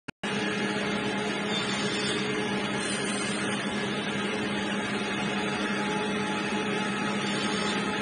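Electric motor and belt-driven drum of a woodworking machine running steadily, a constant hum under a wide grinding noise, as a wooden strip is pressed against the drum.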